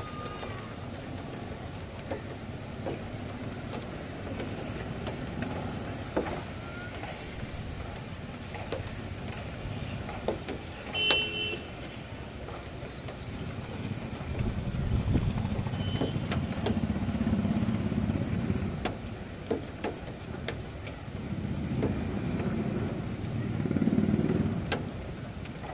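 Outdoor storm ambience: a steady rushing background with scattered sharp clicks and two long low swells in the second half. About eleven seconds in comes a short, loud, honk-like tone.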